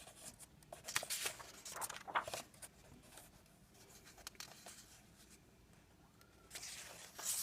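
Paper rustling and rubbing in short bursts as the pages of a glue-bound coloring book are handled, with a quieter stretch in the middle.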